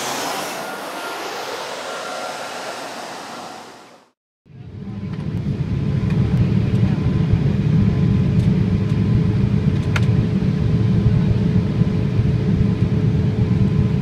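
A whooshing sound with falling tones fades out about four seconds in, and after a brief silence the steady cabin noise of a Boeing 787-8 in flight sets in. The cabin noise is a low rumble of airflow and its GEnx engines with a faint steady hum, and there is one faint click about ten seconds in.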